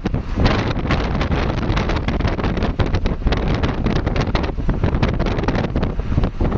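Heavy wind buffeting the microphone, a loud, even rush with a deep rumble underneath that flickers rapidly in strength.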